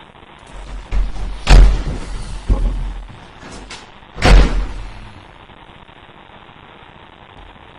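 Loud bangs and thuds in a horror sound effect: a run of heavy hits with deep rumble, the two loudest about a second and a half in and about four seconds in, each trailing off briefly.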